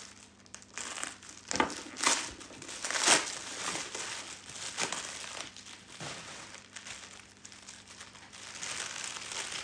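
Plastic bubble wrap crinkling and rustling as it is pulled and unrolled by hand from a crystal sphere. A few sharper, louder crackles come in the first three seconds, the loudest about three seconds in, then quieter rustling.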